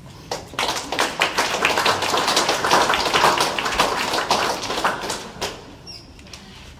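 Audience applauding: a dense patter of many hands clapping that starts about half a second in and dies away after about five seconds.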